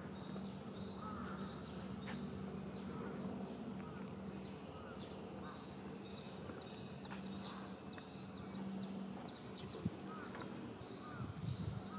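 Small birds chirping in quick runs of short, high, falling notes, with a few softer chirps, over a steady low hum.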